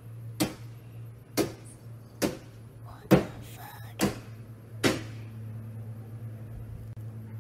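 Six sharp bangs, a little under a second apart, of a long-handled tool striking a parked sports car, over a steady low hum.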